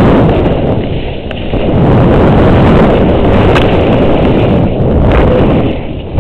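Loud wind rumble buffeting the microphone of a camera worn by a rider descending fast through snowy forest, mixed with the hiss of snow beneath the rider. It eases briefly about a second in and again near the end.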